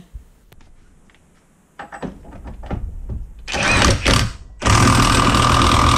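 Milwaukee M18 Fuel cordless impact wrench at its maximum torque setting, hammering on a 3/4-inch bolt clamped in a vise. There is a short burst a little past the middle, then a longer steady run of hammering near the end.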